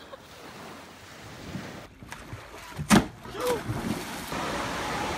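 A person plunging off a pool slide into the water with one loud splash about three seconds in, then a steady rush of water.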